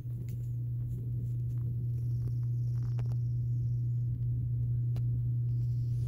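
A steady low hum or rumble, with a few faint ticks.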